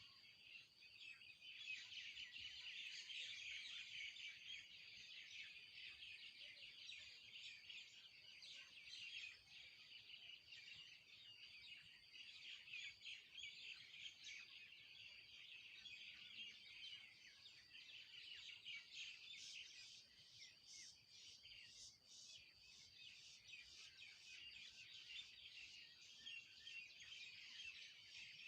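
A faint, dense chorus of many small birds chirping and chattering without pause, high-pitched and busy, with a run of sharper, quicker chirps about twenty seconds in.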